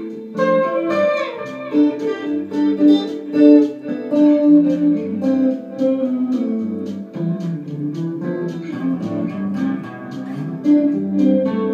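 Electric guitar playing a bossa nova instrumental, plucked chords mixed with single-note lines. There is a brief falling run of notes about a second in.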